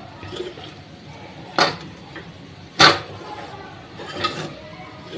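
Metal spatula stirring sabudana khichdi in a metal kadhai, scraping through the pearls and knocking the pan: two sharp clinks about a second and a half and three seconds in, with a few lighter taps.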